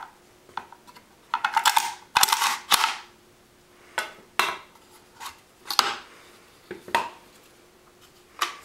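Metal parts of a Dakota Tactical D54P-N 9mm pistol being worked apart by hand: a burst of clattering and scraping about a second in, then single sharp clicks and knocks of receiver, trigger housing and pins coming free, about one every half second to a second.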